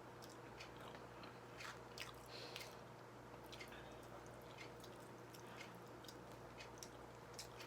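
Faint chewing of takoyaki: soft, irregular mouth clicks and wet smacks from a person eating.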